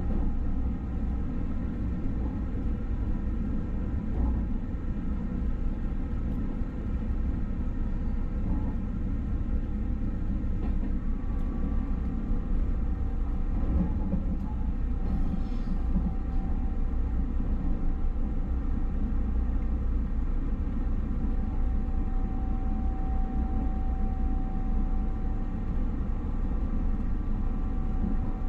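Passenger train running along the track, heard from inside the carriage: a steady low rumble of wheels on rails, with faint steady tones above it.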